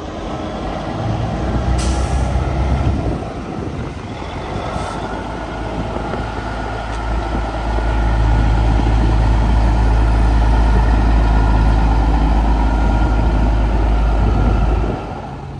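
Caterpillar 3406B diesel engine of a 1984 Ford CL9000 cabover semi tractor running as the truck drives in and maneuvers, its deep rumble growing louder about halfway through and dropping back shortly before the end. Two short hisses of air sound in the first few seconds.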